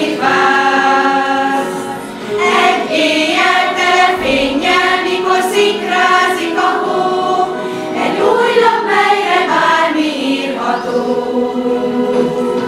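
Mixed choir of women and schoolchildren singing, in sustained phrases with short breaks between them.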